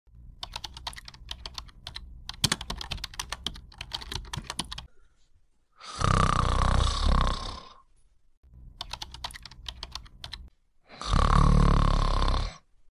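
Computer keyboard typing, a rapid patter of key clicks, alternating with loud snoring. About five seconds of typing is followed by a snore of nearly two seconds, then a shorter run of typing, then a second snore near the end.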